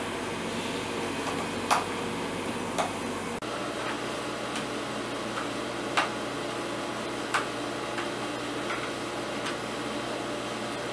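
Scattered small sharp clicks of a screwdriver tip and metal parts as screws are driven into the heating element's metal frame, about seven ticks spread over several seconds, over a steady room hum.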